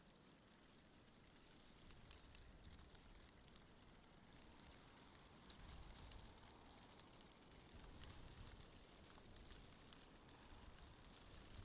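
Faint wind rising and falling in soft gusts, with scattered light crackling ticks over it.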